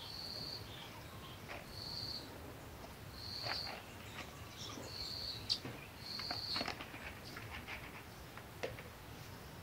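Soaked chickpeas being rubbed and rinsed by hand in water in a plastic bowl, then scooped into a plastic colander and drained, with light splashes, clicks and dripping water. A short high chirp repeats about five times in the first seven seconds.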